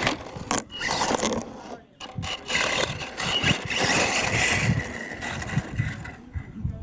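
Radio-controlled monster truck driving across a dirt track, its motor whining with a steady high note for a couple of seconds as it spins its tyres and throws up dirt.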